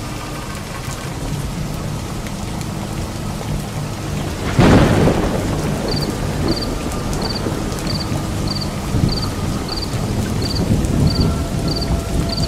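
Steady rain with one loud thunderclap about four and a half seconds in. From about six seconds, a short high chirp repeats about every two-thirds of a second.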